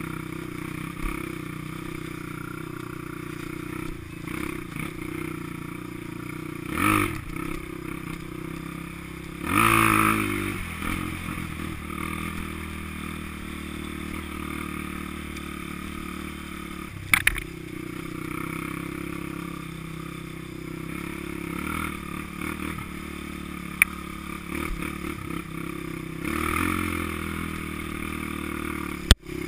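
Honda XR200 dirt bike's single-cylinder four-stroke engine running steadily while riding a rough trail, swelling louder twice early on as the throttle opens, with a few sharp knocks from the bike over the ground.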